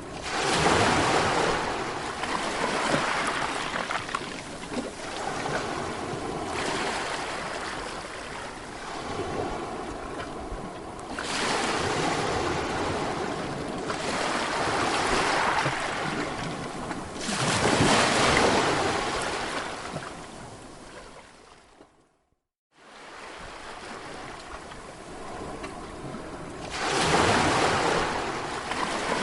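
Sea waves breaking and washing up the shore in repeated surges, each swelling to a rush and then ebbing. About two-thirds of the way through the sound fades out, drops to silence for under a second, and comes back.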